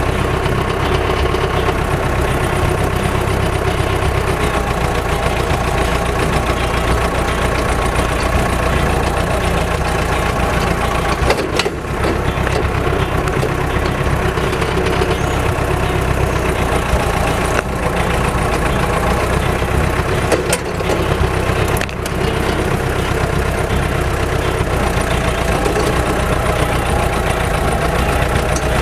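Diesel engine of a Balkancar DV-1792 micro loader running steadily, with a few brief knocks from the machine jolting along.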